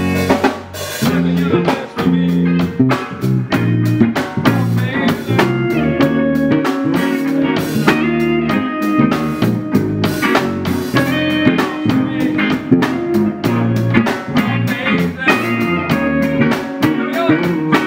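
A band playing live: electric guitars and bass guitar over a drum kit keeping a steady beat.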